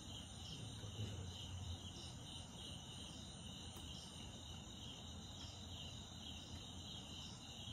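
Night insects, crickets, chirring steadily and high-pitched, with a faint low hum beneath.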